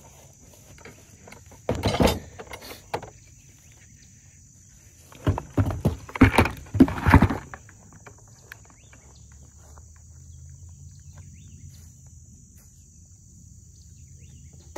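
A steady high insect drone, with bursts of rustling and knocking from hands and gear being worked in dry grass and dirt. The bursts come about two seconds in, and again, louder, from about five to seven and a half seconds in.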